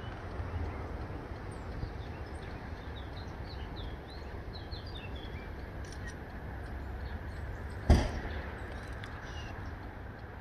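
Open-air ambience: a steady low rumble and hiss with small birds chirping now and then, mostly in the first half. A single sharp knock comes about eight seconds in.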